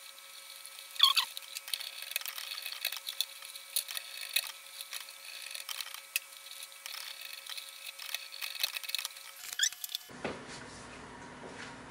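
Small sharp clicks and scratches of stepper-motor wires being worked into a circuit board's screw terminal block and tightened with a small screwdriver, over a faint steady tone. The loudest click comes about a second in. About ten seconds in it gives way to quieter steady room noise.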